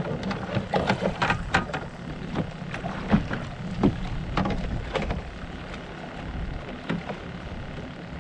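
Scattered short clicks and knocks of handling, hands and a tool working a caught fish on a plastic kayak, over a steady low wind rumble.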